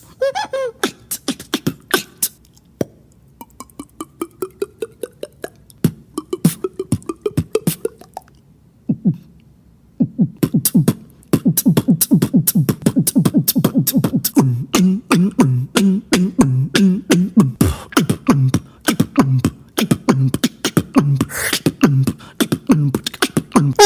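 A beatboxer making vocal percussion and mouth sound effects. Sharp clicks and snaps come throughout, with a rising pitched glide in the first few seconds. From about ten seconds in a dense, fast beat sets in with a pulsing bass line.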